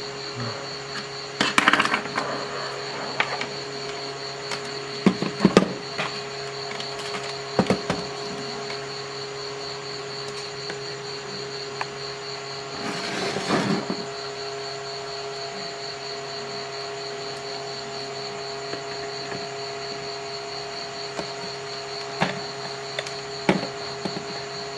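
Scattered clicks and knocks of a plastic power strip and tools being handled, with a brief rustling scrape about halfway through, over a steady hum and a high, faintly pulsing whine.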